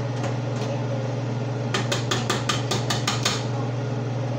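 Metal kitchen tongs clacking: a quick run of about nine sharp metallic clicks midway, over a steady low hum.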